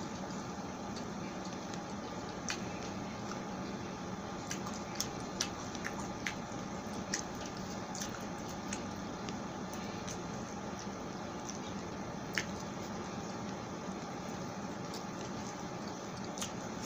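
Close-up eating sounds of someone chewing pork sisig and rice by hand: scattered wet mouth clicks and smacks, a dozen or so spread irregularly, over a steady hiss.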